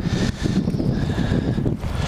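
Strong wind buffeting the microphone, an uneven low rumble with irregular thumps.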